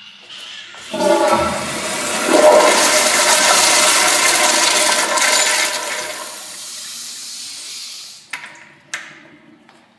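A Kohler Kingston commercial toilet flushing on its flush valve. A loud rush of water starts about a second in and eases after about six seconds into a quieter refill, then two sharp knocks come near the end.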